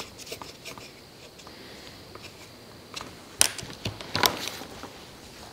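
Faint soft clicks of a new primer bulb on an Echo PAS 260 trimmer being pressed to draw fuel through, then two short louder scuffs of hands on the machine about halfway through.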